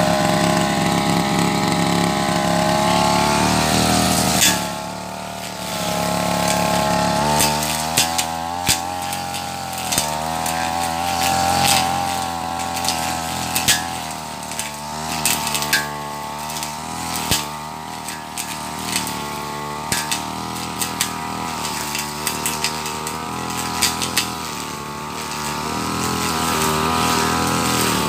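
Backpack brush cutter's small engine running while cutting thick grass, its pitch rising and falling with the throttle and easing off briefly about four seconds in. Sharp clicks come now and then from about eight seconds on.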